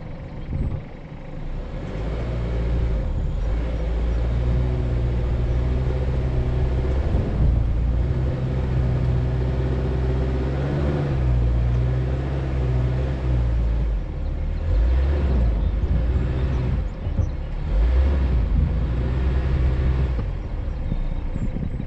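A vehicle's engine pulling steadily under load while driving in sand, a low drone holding one pitch for about twelve seconds. In the last several seconds the revs rise and fall unevenly.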